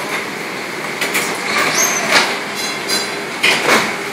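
Restored PCC streetcar running along its track, heard from inside the car: a steady rumble of wheels on rail, with a few sharp knocks and brief high-pitched wheel squeals around the middle.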